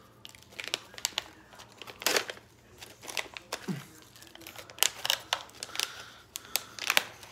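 Foil snack pouch crinkling in irregular bursts as it is torn open and handled, loudest about two seconds in and again around five seconds in.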